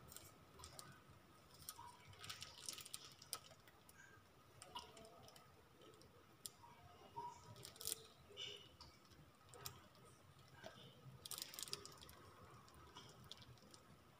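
Near silence, broken by faint, scattered small clicks and light crackles at irregular intervals, clustered at about two to three seconds in and again near eleven seconds in.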